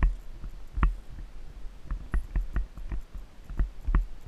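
Icelandic horse's hoofbeats on a sandy dirt trail: a steady rhythm of dull low thuds with short sharper clicks, heard from the rider's seat.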